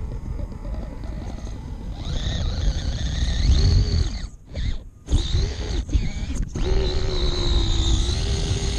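Radio-controlled rock crawler's electric motor and gears whining, the pitch rising and falling with the throttle, over a low rumble. The whine cuts out briefly about halfway through and again a second or so later.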